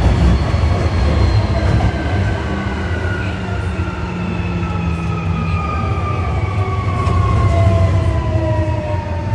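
Osaka Metro 1300-series subway train's Toyo IGBT-VVVF traction motors heard from inside the car, several whining tones gliding steadily down in pitch as the train slows, over the low rumble of wheels on rail.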